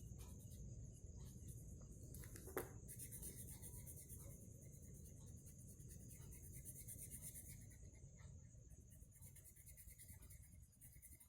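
Faint scratching of colouring on paper, with a single light tap about two and a half seconds in.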